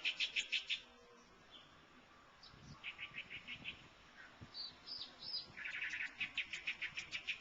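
A bird calling in rapid runs of sharp, evenly repeated chirps, about ten a second. One run ends about a second in, a shorter one comes around the middle with a few higher notes after it, and another starts past the halfway point and runs on.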